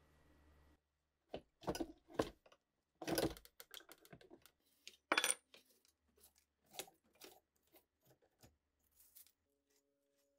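Irregular light clicks and clinks of small metal parts of an old valve radio being handled, a few louder knocks among them. Near the end a faint steady tone begins.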